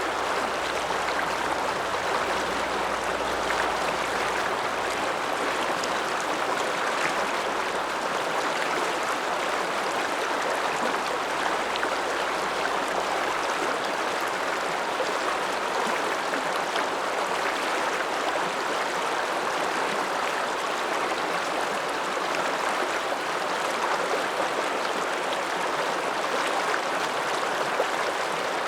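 The Ramsauer Ache, an Alpine mountain river, flowing: a steady, even rush of water with no change through the stretch.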